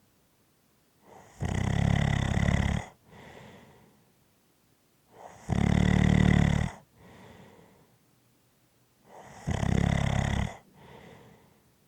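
A person snoring in a steady rhythm: three loud, low, buzzing snores about four seconds apart, each followed by a softer breath.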